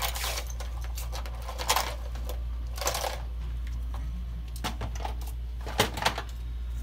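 Small hard tools clattering and clicking in several short bursts, from rummaging through tools on a workbench, over a steady low hum.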